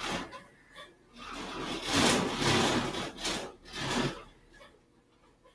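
A large sheet of drawing paper rubbing and scraping as it is handled close to the microphone: a brief scrape at the start, a long one from about one to three and a half seconds in, then a shorter one.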